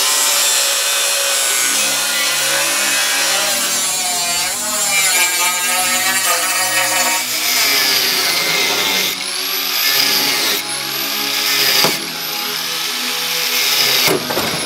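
Corded angle grinder with a cutting disc cutting through rusty steel flatbed rails: a loud, steady grinding hiss over the motor's high whine. In the second half the whine dips in pitch and comes back up several times.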